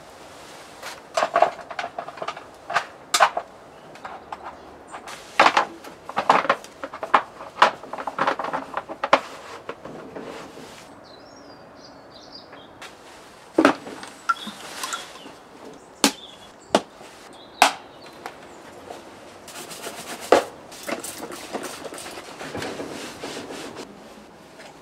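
Irregular knocks and clinks of metal tools and parts being handled during motorcycle engine work, some strikes ringing briefly, with short quiet gaps between bursts.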